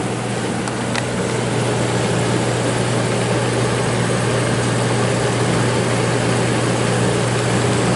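1972 HeatController 9,000 BTU window air conditioner running on cooling: its Tecumseh compressor hums steadily under the rush of air from the fan.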